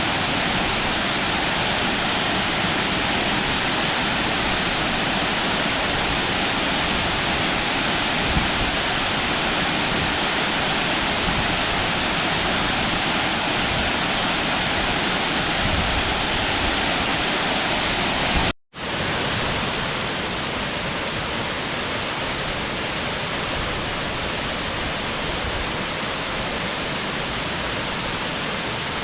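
Waterfall: a steady rush of falling water. It drops out for an instant about two-thirds of the way through and comes back slightly quieter.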